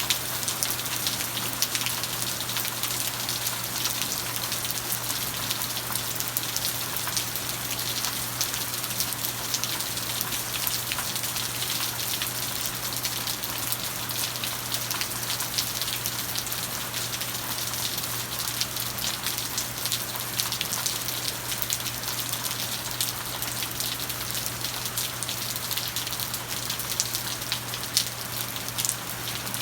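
Steady rain falling: a dense, even hiss full of small drop ticks, with a low steady hum underneath.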